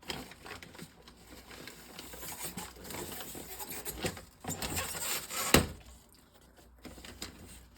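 Plastic water bottles being handled and set onto a refrigerator shelf: crinkling and light clicks, then one sharp clunk about five and a half seconds in as a bottle goes down.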